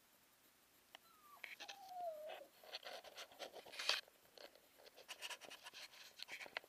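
Faint clicking and rustling, typical of handling noise from a handheld camera being moved, with a short cry or squeak that glides down in pitch about a second and a half in.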